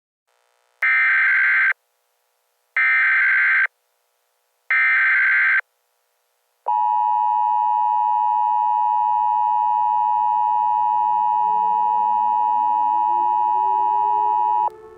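Emergency Alert System broadcast: three short, harsh bursts of SAME header data, then the two-tone EAS attention signal held steady for about eight seconds before it cuts off suddenly. A faint siren starts winding up underneath the attention tone in its last few seconds.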